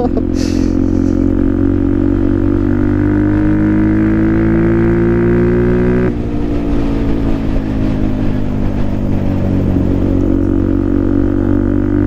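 Benelli TNT125 single-cylinder engine and exhaust pulling under way. The pitch climbs steadily for about six seconds, drops sharply at an upshift, then holds and starts climbing again near the end.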